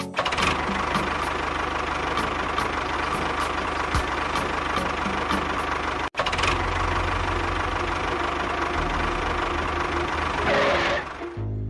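A small motor running steadily with a dense rattling noise over a low hum, cut off sharply for an instant about six seconds in and then running on until just before the end.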